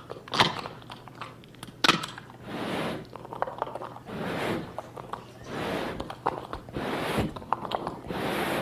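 Vocal sound effects made into a microphone by a comedian miming a climb up into a tall truck: two sharp mouth clicks, then five hissing, breathy swells about a second apart.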